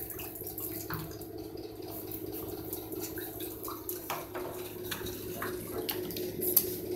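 Water running and splashing in a bathtub where baby raccoons are playing, with scattered small clicks and splashes as they move about in it.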